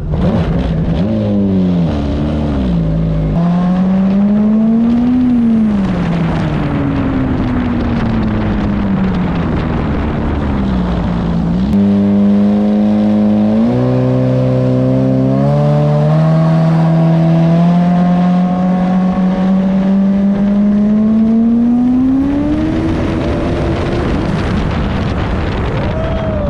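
Fully built turbocharged jet ski engine on a full-throttle speed run. Its pitch rises and falls several times as the throttle is worked, then climbs long and steadily from about halfway and drops off near the end. Wind and water rush run underneath.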